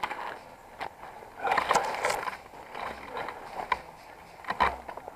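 Brambles, leaves and twigs rustling and scraping against clothing and gear while pushing through dense woodland undergrowth. A few sharp snaps or knocks come through. The noise is loudest about a second and a half in and again near the end.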